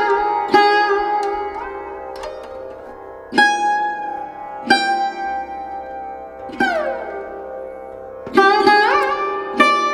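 Background music: a plucked string instrument, sitar-like, playing single ringing notes about once a second, some bent downward or upward in pitch, over a steady low drone.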